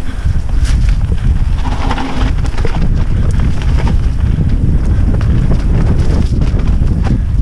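Wind buffeting the onboard camera microphone of a Banshee Rune mountain bike descending fast on a dirt trail, a steady low rumble. Tyres roll over the dirt, with scattered knocks and rattles from the bike as it hits bumps.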